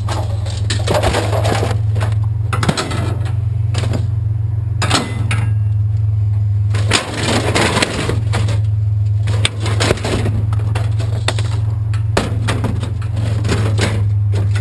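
Scrap metal and junk being handled and piled, with irregular clanks, knocks and rattles of hard objects striking each other, over a steady low hum.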